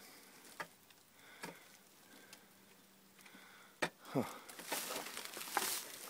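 Dry weed stalks rustling and brushing against the camera and clothing as it pushes into overgrowth, getting louder over the last two seconds. Before that it is mostly quiet, with a few light clicks and a sharp click followed by a short falling squeak about four seconds in.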